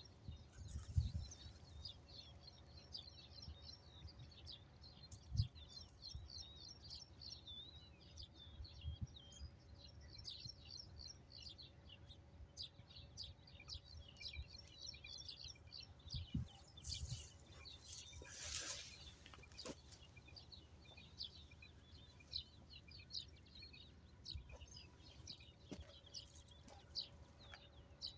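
Small birds chirping continuously in a dense, irregular chatter. There are a few low thumps and a brief noisy rush about two-thirds of the way in.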